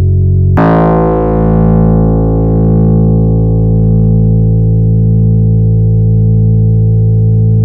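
Korg EX-800 synthesizer playing a distorted cinematic bass sound: about half a second in a new low note strikes with a bright attack that fades into a sustained drone, held with a slow, regular wobble.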